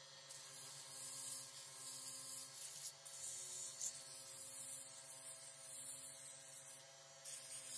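Sandpaper rubbing on a Jatoba bud vase spinning on a wood lathe, making a steady hiss over the lathe motor's low hum. The hiss drops away briefly near the end, then returns.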